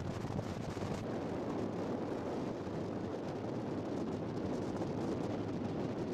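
Motorcycle engine running steadily under a constant rush of wind, heard from a moving motorbike.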